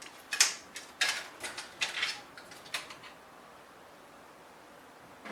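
A run of short clicks and scrapes in the first three seconds, with the loudest click early on: hands working inside a PC case, unplugging the old CPU cooler's connector. A faint steady background follows.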